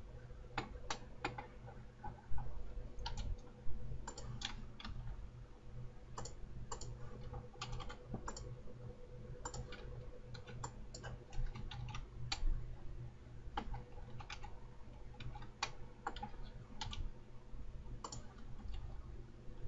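Irregular clicks of a computer mouse and keyboard, single clicks scattered through with short runs of keystrokes, over a low steady hum. Two louder dull knocks come about two and four seconds in.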